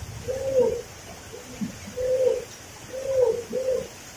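A dove cooing: four short, arched coos, the last two close together.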